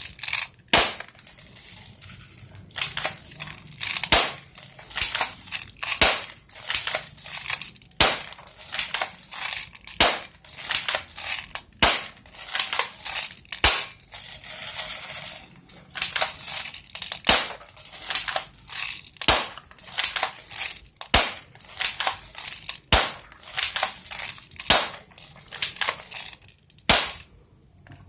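Spring-powered airsoft Glock 18 pistol being cocked and fired again and again, a sharp snap about every two seconds with smaller clicks of racking the slide in between. The 0.12 g BBs feed through its steel tight-bore inner barrel without jamming.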